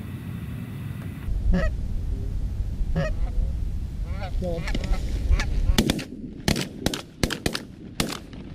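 Canada goose honks over a low wind rumble on the microphone, then a fast volley of about seven shotgun shots in under three seconds as hunters fire on the incoming geese.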